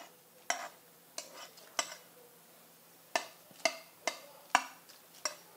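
Light clinks of a ceramic plate as homemade pasta pieces are tipped and pushed off it into a pan of hot water, about eight short knocks spaced irregularly.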